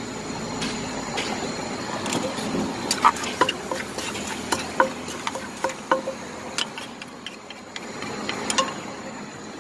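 Wooden pestle pounding papaya salad in a large mortar, with a spoon turning it: a run of irregular sharp knocks, roughly two a second, starting about two seconds in and stopping near the end.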